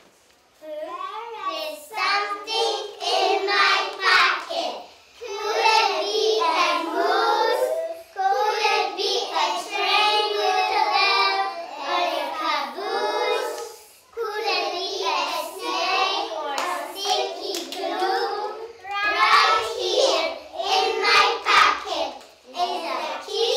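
A group of young children singing a song together, starting about a second in and going on in phrases with short breaks between them.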